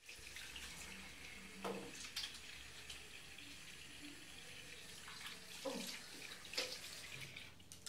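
Faint room noise: a steady hiss like running water, broken by a few brief knocks and short squeaks as the dog is handled on the steel exam table.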